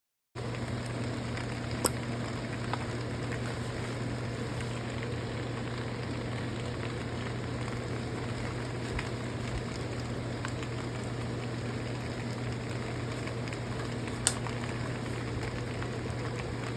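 Food sizzling steadily in a frying pan over a constant low hum, with a couple of sharp clicks, one about two seconds in and one near the end.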